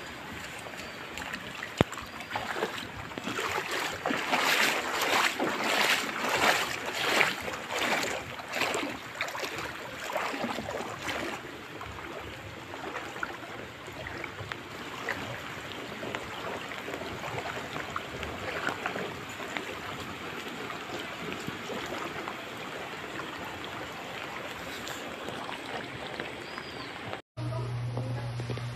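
Rain and running floodwater, a steady rushing wash that swells louder from about three to eleven seconds in. Near the end it cuts off suddenly and a low steady hum takes its place.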